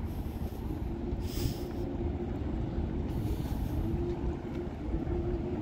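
Steady low mechanical rumble with a humming tone that fades in and out, and short hissing bursts about a second and a half in and again a little past three seconds.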